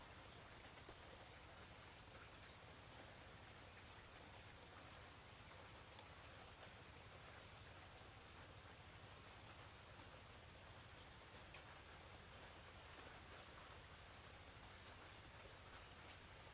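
Faint night insects: one keeps up a steady high-pitched trill, while short chirps come in irregular runs from a few seconds in. Underneath is a soft, even hiss of light rain.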